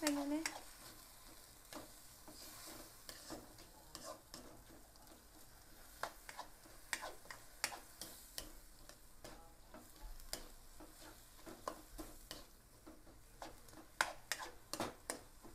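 Bean sprouts and vegetables being stir-fried in a wok: a faint sizzle under frequent scrapes and taps of the spatula against the pan. The taps come thickest about six to seven seconds in and again near the end.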